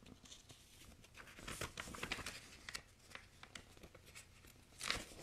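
Thin paper pages of a picture book being flipped and handled: faint rustling with many small crinkles and clicks, and a louder rustle near the end.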